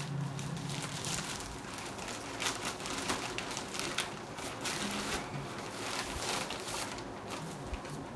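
Plastic poly mailer bag crinkling and rustling as it is pulled open and rummaged through, with a sheet of paper crackling as it is taken out near the end.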